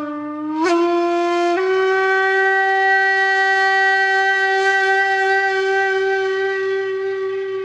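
A wind instrument holding a single note, which jumps up in pitch twice in the first two seconds and then holds steady.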